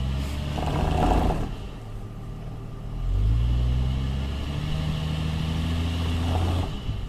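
Jeep Cherokee XJ's engine revved twice under load as it struggles up a steep rock ledge on open differentials: a short rev early on, then a longer one held for about three and a half seconds, each ending with a brief rough crunching before the engine drops back.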